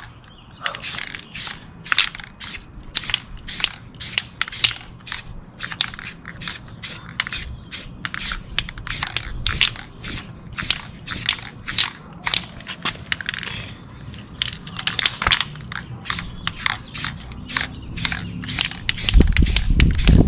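Aerosol can of Rust-Oleum High Performance Wheel matte black paint sprayed in short spurts, about two hisses a second, as a touch-up on a car wheel. A louder low rumble comes in near the end.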